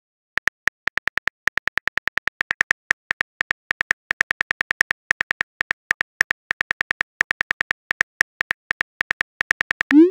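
Phone keyboard click sounds: a fast, slightly uneven run of taps, about six a second, as a text message is typed. It ends with a short rising whoosh as the message is sent.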